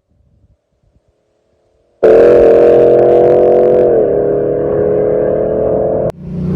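Hemi V8 engine under hard throttle, starting suddenly after about two seconds of near silence and holding a high, steady pitch that dips slightly about two seconds later. Near the end a cut switches to a lower, steady engine drone.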